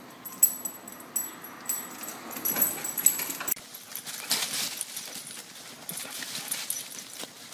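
A puppy's claws clicking and skittering on a hardwood floor as it scrambles after its leash, with sharp knocks, then after a sudden cut a dog's paws scuffling and rustling through dry leaves as it runs circles around a tree.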